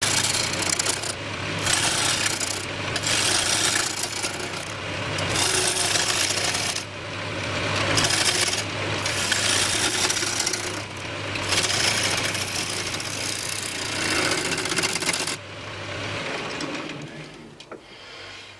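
Wood lathe turning a bird cherry blank, a gouge cutting in long passes with short breaks between them over the low, steady hum of the lathe motor. The cutting stops about fifteen seconds in and the sound fades away near the end.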